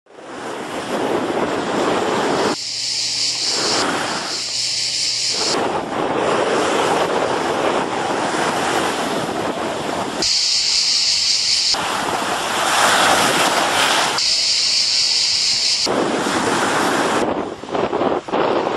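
Ionian Sea surf, waves breaking and washing up a sandy beach in a steady rushing wash. Four times the deep part of the rush drops out for a second or two, leaving only a high hiss. Near the end the sound turns uneven.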